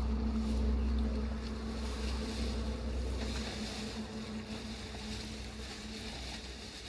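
A small engine running steadily with a constant hum, its low rumble dropping away about halfway through.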